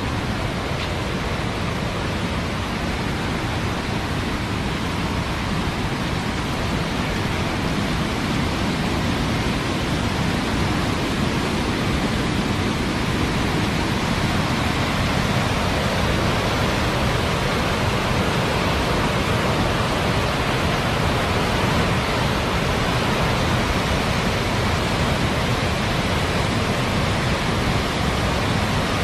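Rushing muddy floodwater of a river in spate: a steady, full rushing noise that grows a little louder about a third of the way in.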